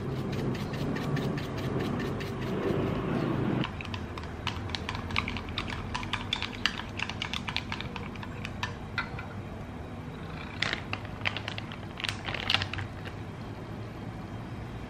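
Wooden chopsticks beating eggs in a glass measuring jug: quick, irregular clicking of the chopsticks against the glass, with a few louder clusters of clinks near the end. It starts about four seconds in, after a duller, denser sound while pepper is shaken in.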